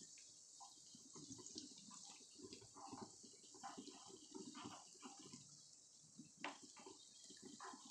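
Ring donuts frying in a pan of hot oil: a faint sizzle with small irregular crackles and pops, and one sharper click about six and a half seconds in.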